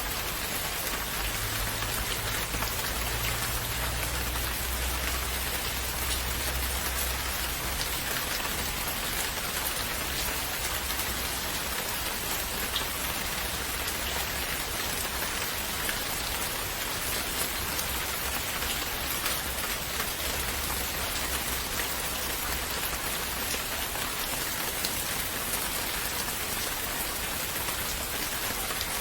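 Steady rain falling, an even wash of drops hitting surfaces, with a low rumble underneath during the first several seconds.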